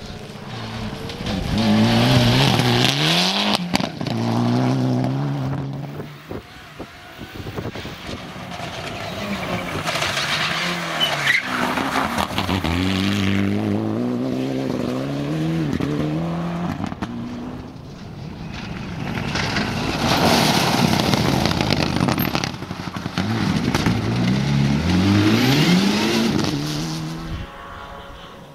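Mitsubishi Lancer Evolution rally cars' turbocharged four-cylinder engines revving hard on a gravel stage, the pitch climbing and dropping through quick gear changes, with tyre and gravel noise. Three separate passes, each building up and fading away.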